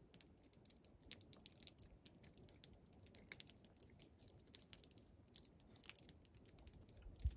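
Faint, rapid, irregular crunching clicks of several cats chewing dry kibble. A single low thump shortly before the end.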